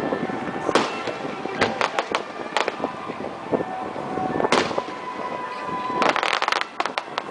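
Aerial firework shells bursting: a string of sharp bangs at uneven intervals, the loudest about four and a half seconds in, then a quick cluster of cracks around six seconds in.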